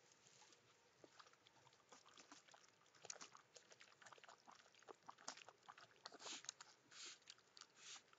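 Raccoons drinking from and wading in a shallow plastic water tub: faint wet clicks and small splashes that grow busier from about three seconds in, with several short noisy puffs near the end.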